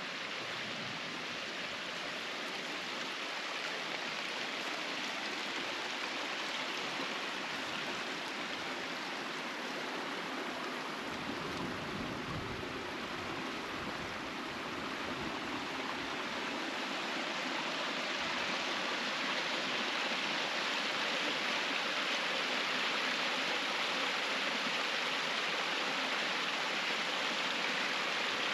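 Water rushing steadily along a mountain irrigation canal, a continuous even flow that grows a little louder past the halfway point.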